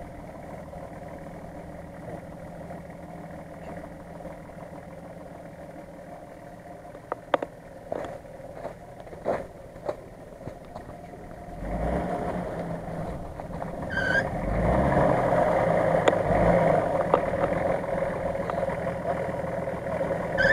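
Nissan Patrol's engine running at low revs as the SUV crawls over muddy, snowy ground, with a few sharp clicks. About halfway through, the engine revs up and keeps pulling hard under load, with a brief squeal a couple of seconds later.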